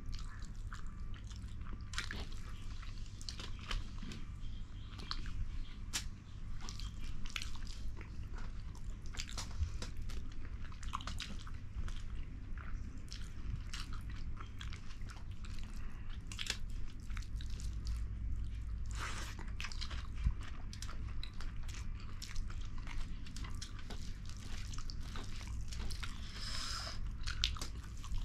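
Close-up chewing and mouth sounds of people eating fish curry and rice: irregular wet clicks, smacks and bites over a low steady hum.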